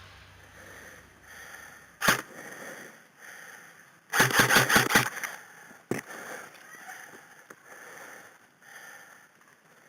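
Airsoft gun firing: a single shot about two seconds in, then a quick burst of about seven shots, then one more shot.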